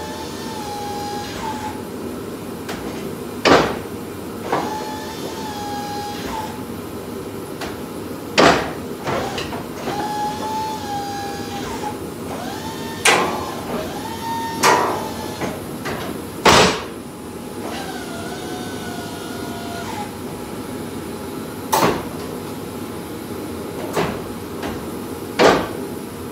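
Boss snowplow's electric-hydraulic pump motor whining in spells of one to two seconds as the blade and wings are worked, with a sharp clunk every few seconds as the blade moves or stops, over a steady running hum. The pump's screens have just been cleaned and it has been refilled with fresh Boss fluid, and it is being cycled to test it.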